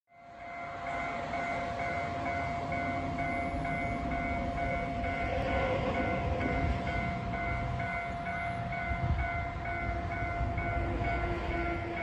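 Railway warning bell ringing in quick, even strokes, about three a second, over a steady tone and a low rumble, as trains are due at the station.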